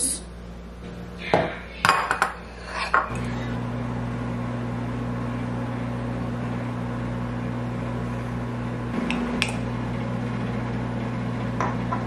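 A metal spoon clinks and scrapes against ceramic bowls and a plastic pint container as ice cream is scooped out. From about three seconds in, a steady low electrical hum sets in, typical of a microwave oven running. It dips briefly about nine seconds in, and a couple of light spoon clinks sound over it.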